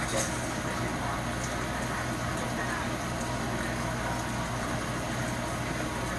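Kitchen faucet running steadily into a stainless steel sink while hair dye is rinsed out by hand.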